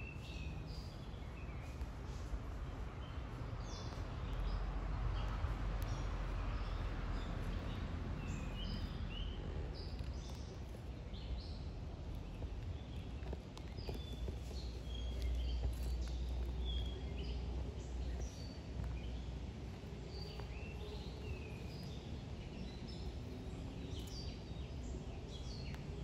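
Several small birds chirping and calling in short, scattered notes over a low rumble of background noise. The rumble swells twice, about four seconds in and again midway.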